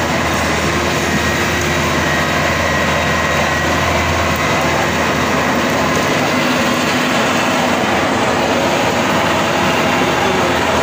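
Maxxi Bimo 102 crawler combine harvester's engine running as the machine drives slowly along on its tracks, a loud, steady mechanical din; a low hum in it fades about halfway through.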